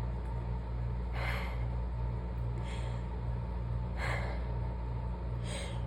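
A woman's sharp gasping in-breaths, four of them about a second and a half apart, as she builds up to a sneeze during an allergy sneezing fit. A steady low hum runs underneath.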